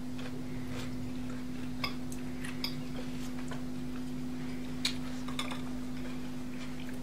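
Forks clinking and scraping on plates and glass bowls while food is cut and eaten: scattered light clinks over a steady low hum.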